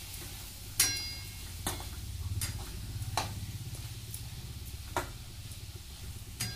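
A steel ladle stirring frying tomato chutney in a metal pan, scraping and striking the pan in about half a dozen sharp clinks. The first clink rings briefly. A low steady hum runs underneath.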